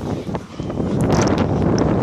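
Storm-force wind buffeting the microphone in loud gusts, easing briefly about half a second in before rising again.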